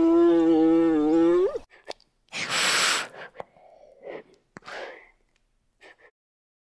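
An animal's drawn-out pitched call lasting about a second and a half, wavering slightly and rising at the end, then stopping abruptly. It is followed by several short, breathy snorts or hisses with gaps between them, the first the loudest.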